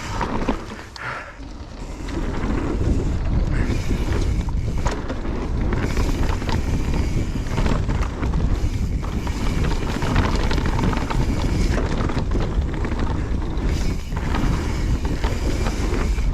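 Mountain bike riding a dirt trail: wind rushing over the microphone with tyres rolling on dirt and the bike knocking and rattling over the bumps. It dips briefly about a second in, then runs steadily loud.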